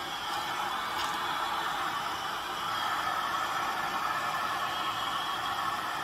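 Handheld electric heat gun running, a steady whir of its fan and blowing air, getting slightly louder about halfway through.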